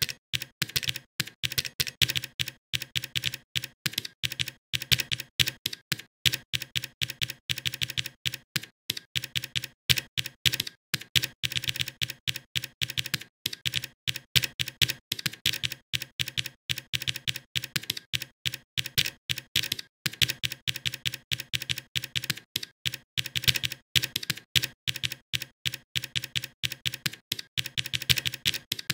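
Computer keyboard typing: rapid, separate keystrokes, several a second, with only brief pauses.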